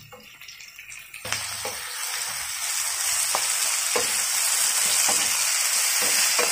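Chopped tomatoes, sliced onions and green chillies sizzling in hot oil in a non-stick pan, the sizzle swelling loud about a second in. A wooden spoon stirs them, knocking against the pan about once a second.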